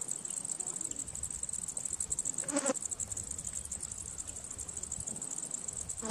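Insects chirring: a steady, high-pitched, rapidly pulsing buzz, with one brief pitched sound about halfway through.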